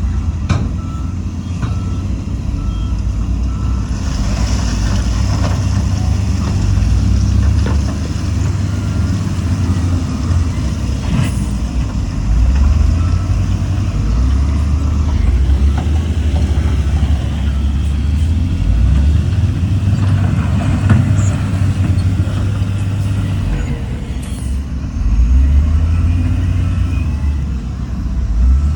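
Heavy diesel earthmoving machinery running under varying load, its low engine rumble stepping up and down, with a reversing alarm beeping in the first couple of seconds and a brief hiss a few seconds in.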